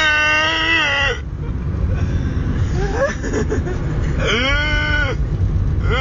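A young man deliberately making an annoying, high-pitched held vocal noise: one call ends about a second in, and another, arching up then down, comes around four seconds in, lasting about a second. A car's steady road and engine rumble runs underneath, heard from inside the cabin.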